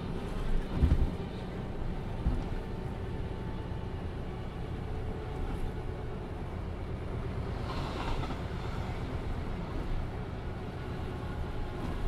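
Mercedes-Benz O407 city bus under way, heard from on board: its diesel engine runs steadily under road rumble. There are a few short knocks about a second in, and a brief rattle around eight seconds.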